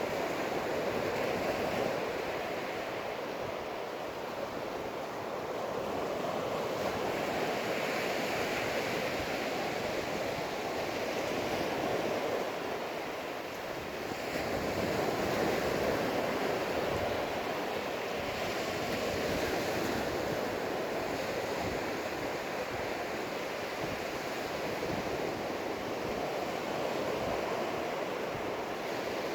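Ocean surf breaking and washing up the beach in slow, repeated swells, with some wind rumbling on the microphone.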